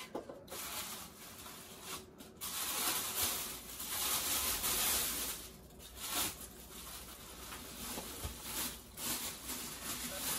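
Rustling and rubbing of packing material as a heavy statue base is dug out of its box, in irregular scraping spells, loudest about three to five seconds in.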